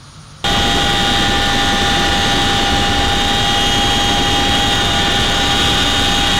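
Military transport helicopter in flight, heard from inside the cabin with the rear ramp open: loud, steady engine and rotor noise with a steady high whine. It cuts in abruptly about half a second in, after a brief quiet stretch.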